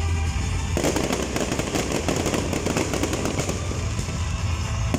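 Fireworks crackling: a dense run of rapid small pops starts about a second in and thins out after a few seconds, over background music.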